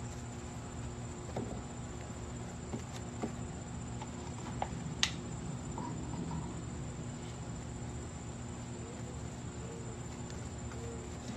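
Crickets trilling steadily over a low hum, with a few faint taps and clicks, the sharpest about five seconds in.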